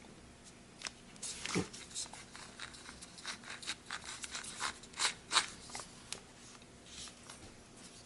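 Irregular crinkles, scrapes and light clicks of packaging and a cordless drill being handled.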